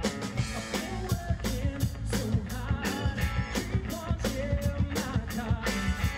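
Live band playing upbeat rock music: a drum kit keeping a steady beat under guitars and keyboard.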